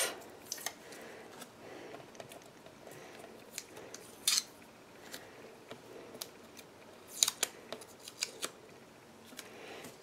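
Tape being peeled off a paper card and a clear acrylic plate: a few short, sharp rips, the strongest about four seconds in and a quick cluster a few seconds later.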